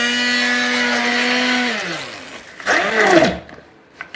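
Hand-held immersion blender motor running steadily as it purees watermelon chunks in a steel pot. It is switched off a little under two seconds in and winds down with a falling pitch, then gives a brief burst that rises and falls in pitch about three seconds in.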